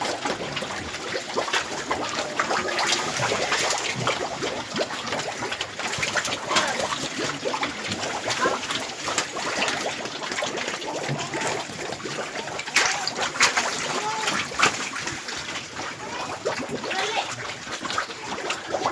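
Pigs splashing and slurping: a continuous wet crackle of small clicks and splashes.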